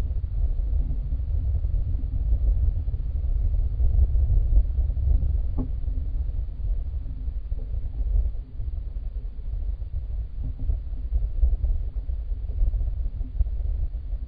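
Steady low rumbling noise picked up by a wildlife camera trap's microphone, with a faint click about five and a half seconds in.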